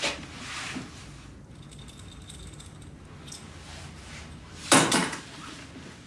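Two loud mechanical knocks or clatters, one at the very start that fades over about a second and a louder, rattling one near the end, over low room tone.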